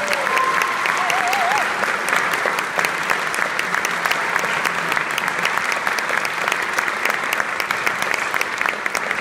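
Concert audience applauding steadily: many hands clapping at once, dense and even.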